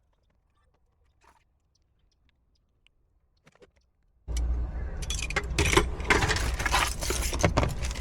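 Near silence with a few faint clicks, then a little over four seconds in a sudden loud jangle and clatter of keys being handled, over a low rumble.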